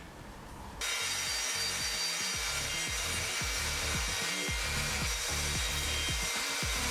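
Table saw cutting wood: the saw's noise cuts in sharply about a second in and then holds steady.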